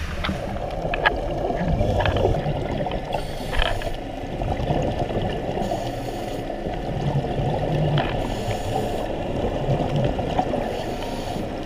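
Muffled underwater sound of a scuba diver's regulator and exhaled bubbles, heard through the camera's waterproof housing, with a few sharp clicks.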